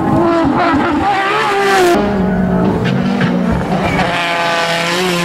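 Rally car engines at full throttle approaching on a tarmac stage, the engine note rising and falling with revs and gear changes. The sound changes abruptly about two seconds in, as a Porsche 911 rally car gives way to a Citroën DS3 rally car.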